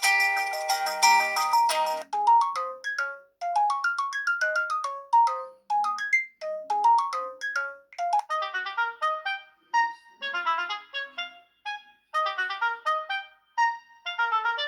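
LG Optimus L5 (E455) phone ringtones playing. A dense, chord-filled tune changes abruptly about two seconds in to a sparser melody of short, clipped notes in rising runs, which grows fuller with chords from about eight seconds in.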